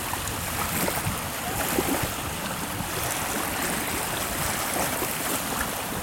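Small waves on a choppy river lapping and splashing at the shore, a steady wash of water.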